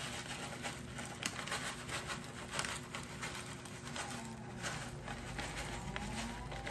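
Crispy French fried onions shaken from a bag onto a casserole in a metal baking pan: a steady run of small irregular ticks and patter, with the bag crinkling.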